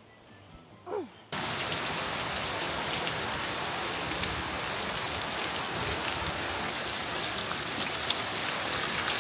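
Heavy rain pouring down onto wet pavement and puddles, a dense steady patter that starts abruptly about a second in.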